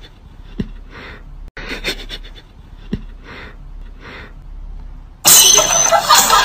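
Soft breathy puffs repeating about every second and a half, with faint low knocks between them. About five seconds in, loud music suddenly cuts in.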